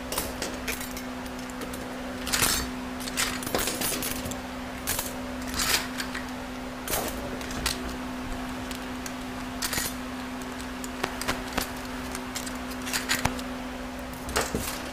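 Overdrive clutch plates of a 68RFE automatic transmission clinking and clattering as they are pulled out of the clutch pack: a dozen or so irregular sharp metallic clicks over a steady low hum.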